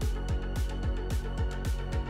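Background electronic music with a fast, steady kick-drum beat and regular cymbal hits.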